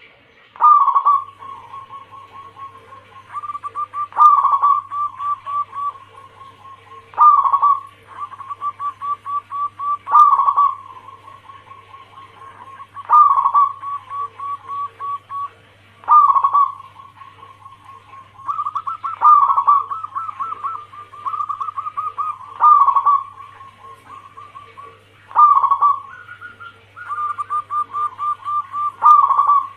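Zebra dove (perkutut) of a local Bangkok-cross line singing its cooing song: each phrase is a strong opening coo followed by a rapid run of short stuttering coos, repeated about every three seconds. A faint steady hum runs underneath.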